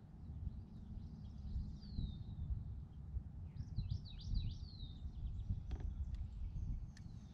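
A songbird singing quick, falling chirped phrases in two bouts over a low, steady rumble, with a few faint clicks near the end.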